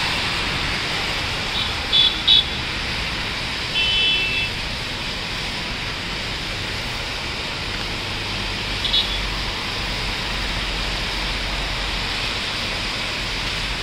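Steady rain falling, with short car-horn toots from the street below: two quick ones about two seconds in, a longer one around four seconds, and another brief one near nine seconds.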